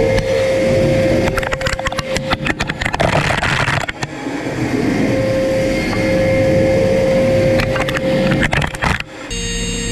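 A CNC machining centre's 100 mm face mill at 6366 rpm cutting across the face of a metal billet: a loud steady high-pitched cutting tone over a low hum. It is broken twice by rapid runs of sharp clicks as chips are thrown against the enclosure. It stops abruptly near the end.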